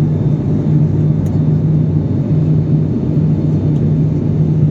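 Steady drone of an airliner's engines heard inside the passenger cabin during the descent: a constant low hum over a rumble.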